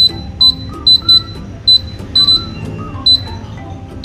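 Camel 22L air fryer oven's control-panel beeper giving about eight short, high electronic beeps, irregularly spaced, as the start/cancel dial is turned to set the time and temperature. Background music plays underneath.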